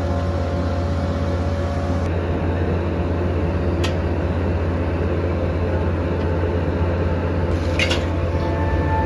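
Factory machinery running with a steady low hum, with two short clicks, one about four seconds in and one near the end.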